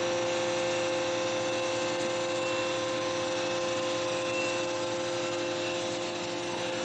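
Excavator diesel engine running steadily, with a constant hum and two steady tones.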